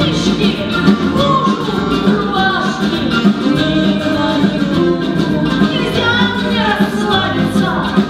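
Musical-theatre song number: band music with singing over it.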